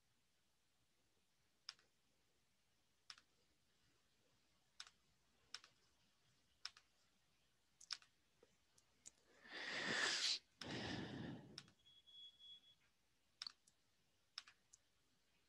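Faint, sparse computer mouse clicks, roughly one every second, with a louder rustling rush lasting about two seconds just past the middle, then a brief high tone.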